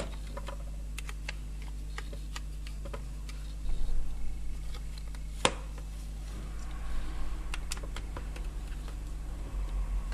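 Hands and a screwdriver working on a plastic freezer door handle, tightening its fixing screw: scattered small clicks and taps, a louder knocking patch around four seconds in and one sharp click about a second and a half later, over a steady low hum.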